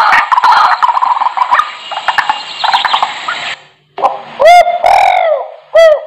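Recorded bird calls played very loud through a CHINAGOODS E76 electronic bird caller, a hunting decoy speaker. A fast run of chirping cuts off abruptly about three and a half seconds in. After a brief pause come three loud calls, each with a falling pitch.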